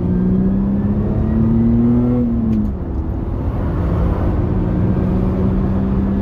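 1990 BMW 325i's straight-six engine pulling the car along the road. Its pitch rises steadily for about two and a half seconds, drops, then holds steady.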